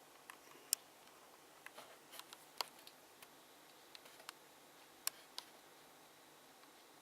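Irregular sharp clicks and light taps of small hard plastic parts being handled, about a dozen in the first five and a half seconds, then only faint room hiss.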